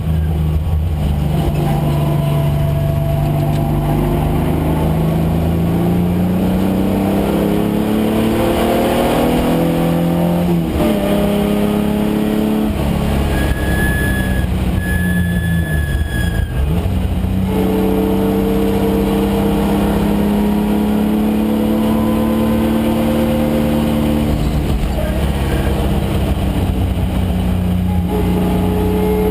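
Datsun 510 wagon's swapped-in Nissan VG30 3.0-litre V6 under racing load. The engine's pitch climbs steadily for about ten seconds, drops sharply twice, once near the middle and once just after, as the driver shifts or lifts, then climbs again and holds.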